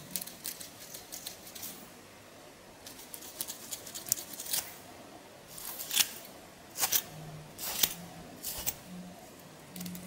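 Comb teeth scratching over a dandruff-flaked scalp, loosening the flakes: a run of short, irregular scratchy strokes, louder and more spaced out in the second half.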